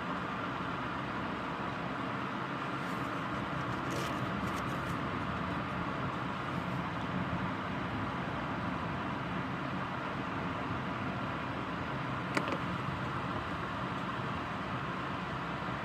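Steady rain falling, an even hiss with a few faint clicks about four seconds in and another near twelve seconds.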